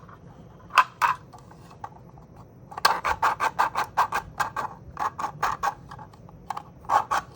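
A plastic Nerf drum magazine's mechanism clicking as it is worked, in a fast train of about five or six clicks a second, with a couple of single clicks before and a few after. It is the sound of a mag built without silicone grease.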